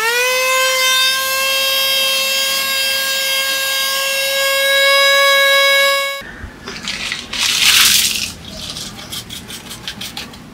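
Small cordless handheld vacuum cleaner switched on: its motor spins up with a rising whine, then runs as a steady high-pitched whine for about six seconds, getting a little louder near the end before it cuts off abruptly. After that comes paper rustling and crinkling as a paper bag of scraps is handled.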